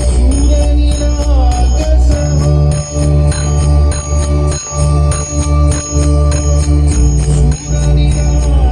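Loud dance music played through a DJ sound system of four bass cabinets and two top speakers for a sound check: heavy, pulsing deep bass under a steady, fast jingling percussion beat and a held melody line.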